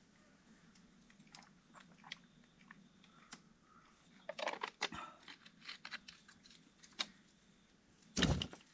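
A clear plastic water bottle being handled while someone drinks: scattered small crinkles and clicks, busiest about halfway through, then a louder thump with a rustle near the end as the bottle is set down.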